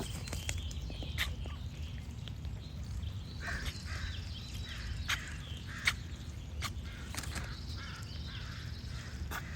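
Ducks quacking in short calls now and then, with other birds calling, over a steady low rumble.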